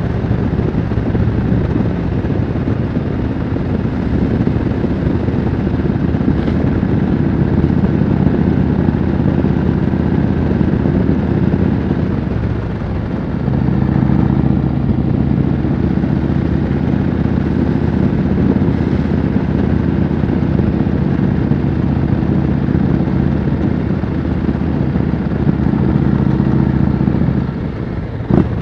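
Yamaha Road Star V-twin cruiser with loud aftermarket pipes running steadily at road speed. Its exhaust note eases off briefly near the middle, then picks up again. Near the end the engine sound drops and there is a short sharp click.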